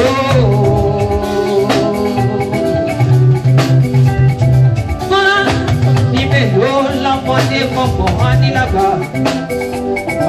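Upbeat dance music with a steady beat, a strong bass line and a bright melodic line.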